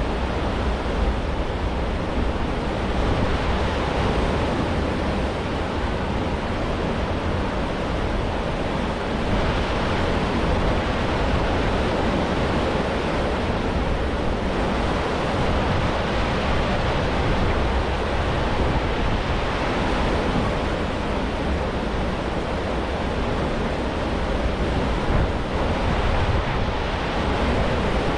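Steady rush of churning white water in the propeller wake of the cruise ship Symphony of the Seas, with wind rumbling on the microphone.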